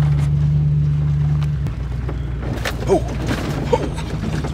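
Pickup truck cab noise: the running engine and the defrost blower make a steady low hum that eases slightly under two seconds in. Two brief squeaks come near the middle.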